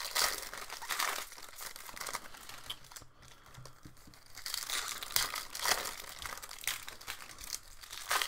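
Plastic trading-card packaging crinkling and tearing as it is opened by hand, in irregular rustles with a short lull about three seconds in.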